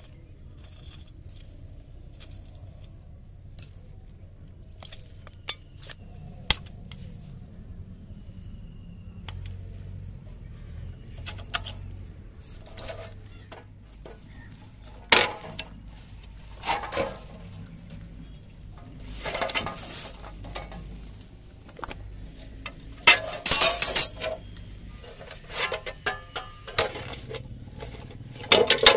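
Hand tools clinking and clicking against the metal parts of a TVS 50 moped being taken apart: scattered single clinks and knocks, with a louder burst of metallic clatter about three-quarters of the way through.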